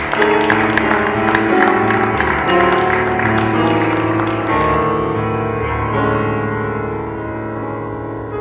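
Grand piano played solo: a busy stream of notes in the middle and upper range over held low bass notes, growing gradually softer over the last few seconds.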